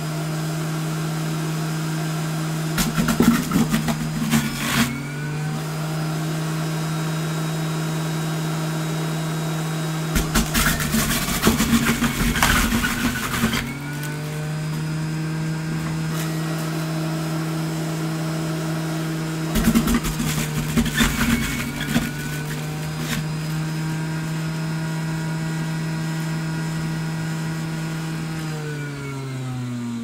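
Bosch 700 W centrifugal juicer motor running with a steady hum. Three times, louder grinding and shredding rises over it as produce is pushed down the feed chute into the spinning cutter disc. Near the end the motor is switched off and winds down, its pitch falling.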